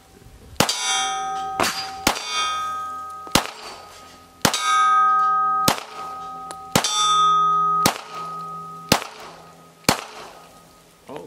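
String of about ten shots from a Ruger LCP Max .380 pocket pistol, roughly one a second, each followed by the ringing of steel plate targets being hit. The 12-round magazine feeds the string without a jam.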